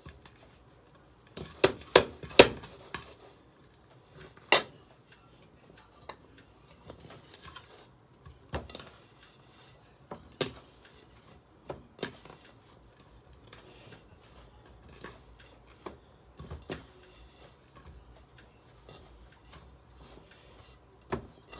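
Pie dough being pressed and squeezed together by hand in a bowl: soft rubbing and squishing, broken by irregular knocks and taps of hands against the bowl, a quick cluster of them early and single ones every few seconds after.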